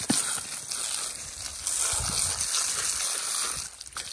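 Garden hose spraying a stream of water onto an elk skull, splashing off the bone onto the grass as maggots are rinsed away; the splashing eases briefly near the end.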